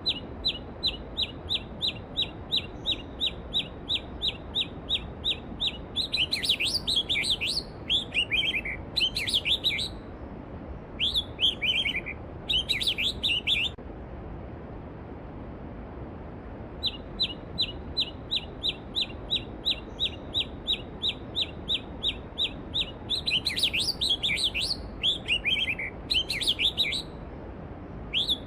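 A songbird sings over the steady rush of a mountain stream. Each song opens with a fast run of about three identical chirps a second, then breaks into jumbled, falling phrases. The song comes twice, with a pause of a few seconds between.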